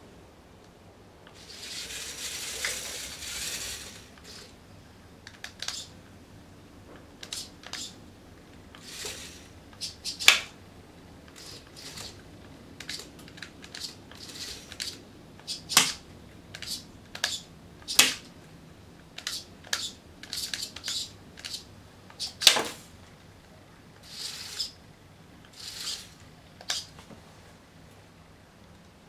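Small remote-controlled rubber-band-shooting robot at work on a tiled floor: short spells of motor whirring, with many sharp mechanical clicks and a handful of louder single snaps as rubber bands are fired.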